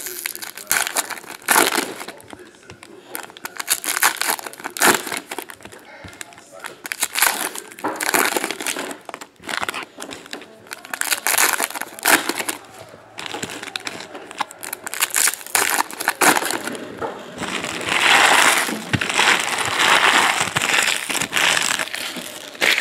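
Foil trading-card pack wrappers being torn open and crinkled in the hands, in repeated short bursts, with a longer stretch of dense crinkling near the end.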